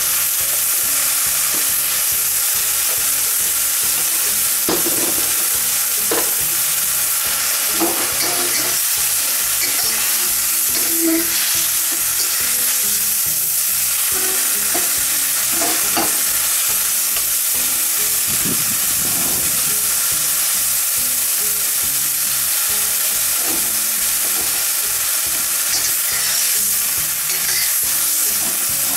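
Stir-fry sizzling steadily in a carbon steel wok over high heat, with a metal wok spatula scraping and tossing the food against the pan every second or two.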